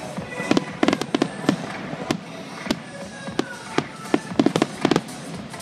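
Fireworks finale: aerial shells bursting in rapid, irregular succession, many sharp bangs, some overlapping, thickest near the end.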